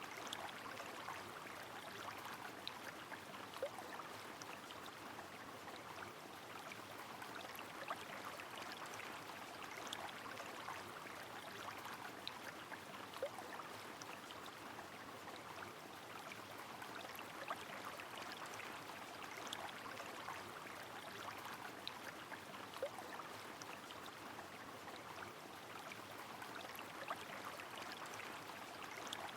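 Steady rush of a river with rain falling, and scattered sharp drops ticking throughout.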